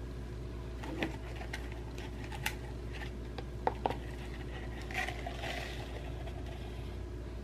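Light clicks and taps of a plastic drip-coffee filter basket being handled and a mortar knocked against its rim, then a brief soft rustle of freshly ground coffee sliding out of the mortar into the paper filter about five seconds in, over a steady low hum.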